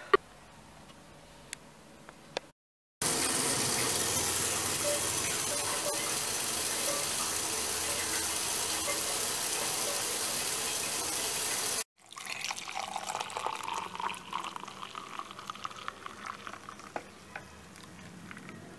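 A handheld shower head spraying water, a loud steady hiss for about nine seconds that stops abruptly. Then water is poured from a kettle into a ceramic mug of coffee powder, an uneven splashing fill.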